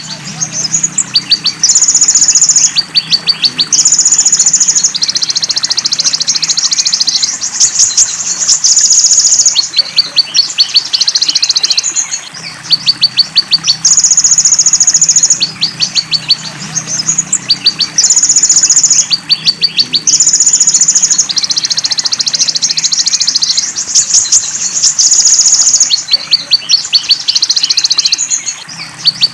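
Looped bird-song training recording of a konin (sunbird) with other songsters' calls mixed in: high, fast buzzing trills alternate with quick runs of thin ticking chirps, the pattern repeating about every twelve seconds, over a faint low wash of running water.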